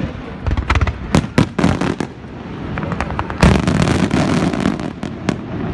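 Fireworks going off: a quick run of sharp bangs and pops, then a dense crackling barrage for over a second about halfway through, with more single bangs after it.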